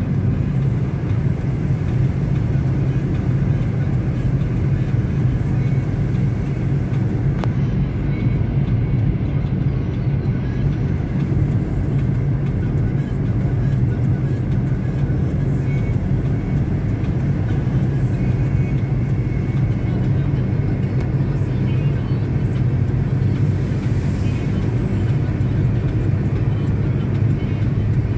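Car driving along: a steady, unbroken rumble of engine and road noise.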